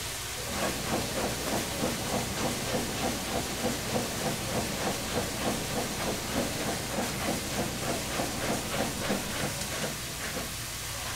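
Large pot of water boiling hard under the cooking sundae, giving a steady hiss of steam and a regular chugging pulse of about three beats a second, which starts about half a second in and stops shortly before the end.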